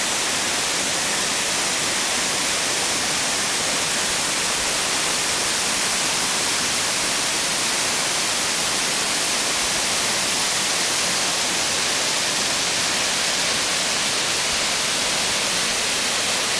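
Waterfall crashing down a rock cliff: a steady, loud rush of falling water with no change in level.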